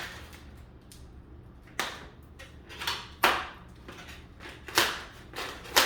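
Latex twisting balloons handled and rubbed together: four or five short rubbing squeaks and scrapes, each starting sharply and dying away quickly.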